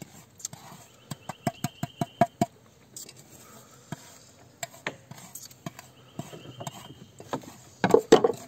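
Spoon clicking and scraping against a bowl of food while eating: a quick run of clicks about a second in, then scattered taps, with a louder short burst near the end.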